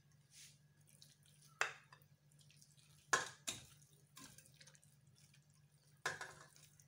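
Marinated meat pieces wet with oil and vinegar being tipped from a bowl into a stainless steel pot: a few short, faint wet plops and knocks, the clearest about three seconds in and again near the end.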